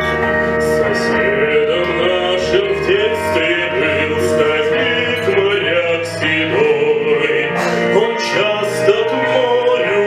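Man singing a slow melody in classical (academic) style over instrumental accompaniment that holds steady chords.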